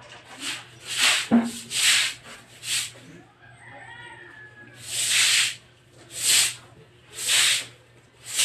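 A broom sweeping water across a wet concrete floor: swishing strokes, a few quick ones in the first three seconds, a short pause, then about one stroke a second.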